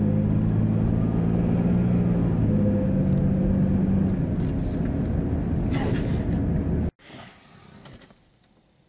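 Engine hum and road rumble inside a van's cabin while driving, steady, with a few even engine tones that ease off partway through. It cuts off suddenly about seven seconds in, leaving only faint sounds.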